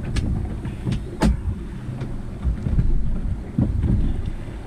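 Small 21-foot pilothouse boat under way: a steady low rumble of motor and rushing water, with wind buffeting the microphone. A couple of sharp slaps come within about the first second.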